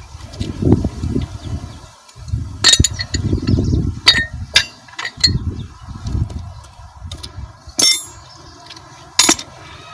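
Metal tools and parts clinking and clanking as they are handled, a handful of sharp clinks among low, muffled knocks and rumbles.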